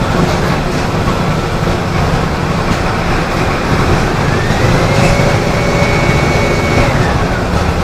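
Mercedes-Benz OF-1417 bus's 170 hp OM-904LA diesel engine running with a steady low drone. About halfway through a thin whine rises, holds for about two seconds and falls away near the end.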